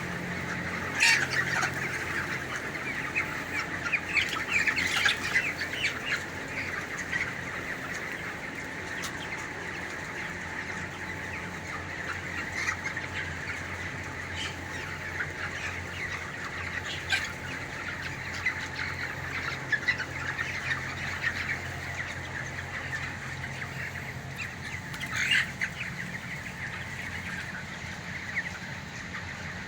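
A flock of broiler chicks peeping continuously in a dense chorus, with louder sharp calls breaking out about a second in, around four to six seconds in, and twice more later. A steady low hum runs underneath.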